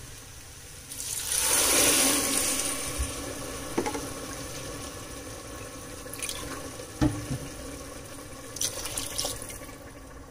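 Water poured from a bowl into a pressure cooker pot of rice, chickpeas and masala, loudest from about one to three seconds in, then a quieter steady wash with a few light knocks.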